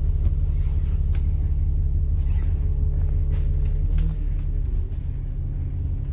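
Steady low rumble of a bus in motion, heard from inside the cabin, with a few faint clicks and rattles.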